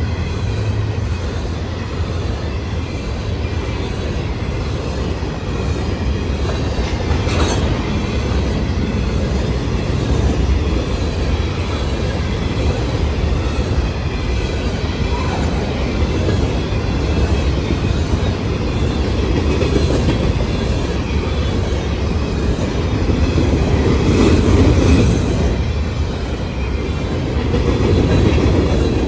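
Empty covered grain hopper cars of a freight train rolling past, a steady loud rumble of steel wheels on rail with a faint wavering wheel squeal. The sound swells briefly twice near the end.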